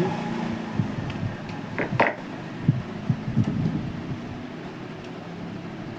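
Handling noises from an inverter's circuit board being moved about over its metal case: a couple of sharp clicks about two seconds in, then a few light low knocks.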